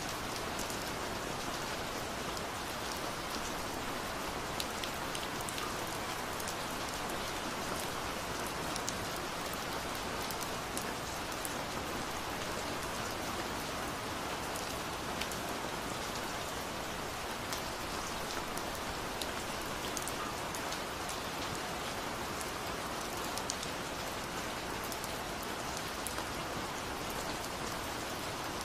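Steady rain falling: an even hiss with scattered ticks of individual drops, from an added rain-sounds ambience track.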